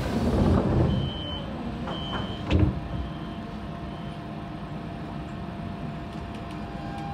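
Siemens C651 train's sliding doors closing: two short door-warning beeps, then the doors shut with a sharp knock about two and a half seconds in. A steady hum from the train follows.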